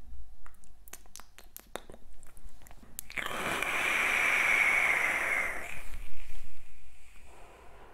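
A long draw on an electronic cigarette: air hissing through the atomizer for about two and a half seconds, after a run of scattered small clicks. The draw is followed by a short, breathy exhale of vapour.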